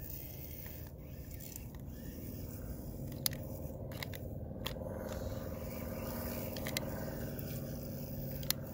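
Faint, steady whir of a HuaF 4WD amphibious RC monster truck's electric drive motors as it is driven out of a sandy dip where it got stuck, growing a little stronger from about three seconds in. A few sharp clicks are heard along the way.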